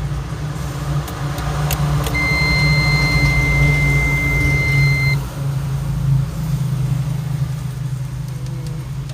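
A steady low mechanical hum, with a few clicks and then a single steady high electronic beep lasting about three seconds.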